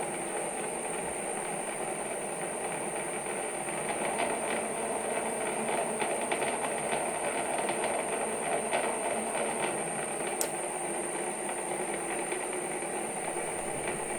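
Metal lathe running steadily, its gearing clattering lightly, with a constant high whine over it. The clatter grows a little louder in the middle.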